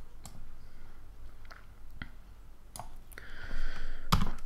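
Scattered clicks from a computer mouse and keyboard, about five over a few seconds, the loudest near the end, with a brief soft hiss shortly before it.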